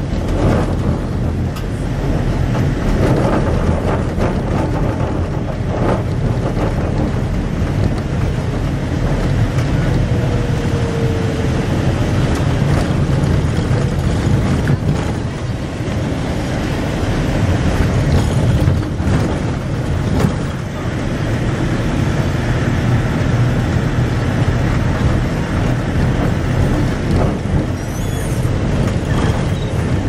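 Safari vehicle on the move, heard from inside the cabin: steady engine and road noise.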